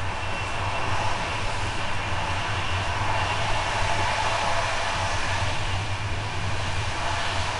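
Steady running noise inside a passenger coach of an express train at speed: a low, constant hum and rumble from the wheels and running gear under an even rush of noise, with no distinct rail-joint clicks.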